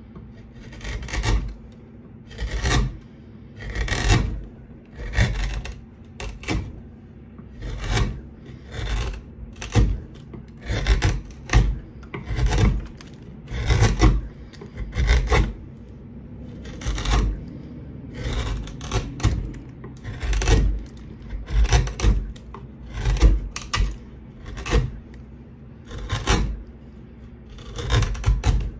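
A sharp hand tool carving the arching of a fiddle plate. Short scraping cuts come about once a second, each one peeling off a curl of wood.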